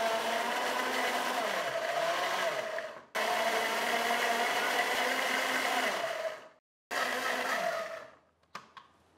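Countertop blender motor running at full speed, churning oats, apple chunks, eggs and milk into pancake batter. It is a steady whine with a faint rattle of the jar, breaking off sharply twice and stopping about eight seconds in.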